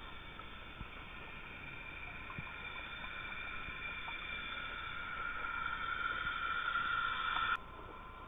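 A boat motor's whine heard underwater, several high tones over a hiss, growing steadily louder and then cutting off suddenly with a click near the end.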